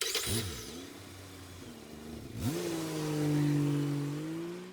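Motor vehicle engine: its pitch drops in the first half second and idles low, then about two and a half seconds in it revs up quickly and holds steady, louder, as the vehicle accelerates.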